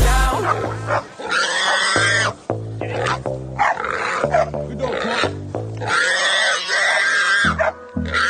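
Feral boar squealing repeatedly in long, harsh bursts as pig dogs hold it, over background music with a pulsing bass beat.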